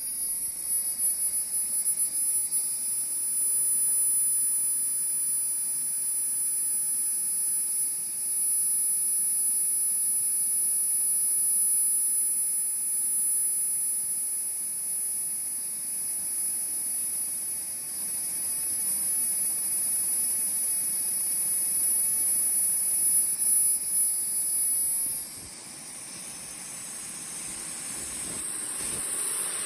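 iQ Hammer 90+ model jet turbine running on a test run after servicing: a steady high whine over a rushing roar. Near the end the whine climbs sharply in pitch as the turbine spools up.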